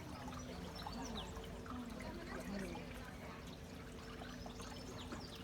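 Water trickling and lapping along the hull of a small canal boat as it glides, over the steady low hum of its electric motor.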